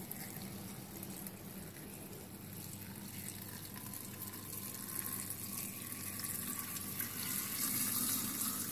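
Water pouring in a steady stream from a glass pitcher into a large glass jar of hawthorn berries and apple chunks, splashing onto the fruit and getting louder near the end.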